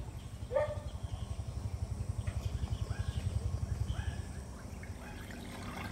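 A low, fast-throbbing engine that swells and then fades over a few seconds, with several short animal calls over it.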